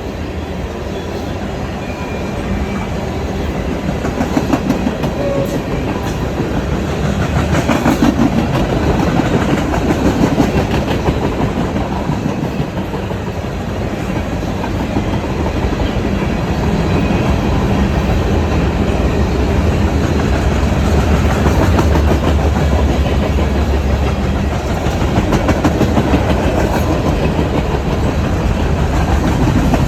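Loud freight train rolling past on the main line: a steady rumble of wheels on rail with rhythmic clickety-clack as wheels cross rail joints, the clicking plainest in the first third.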